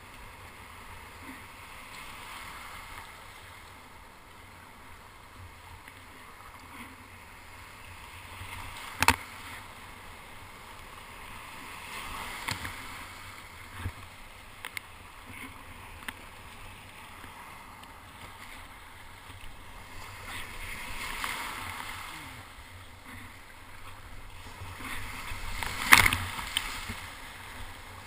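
Whitewater surf foam rushing around a kayak as it is paddled out through broken waves, with the paddle blades splashing. Two sudden sharp hits cut through, about a third of the way in and near the end, the second the loudest.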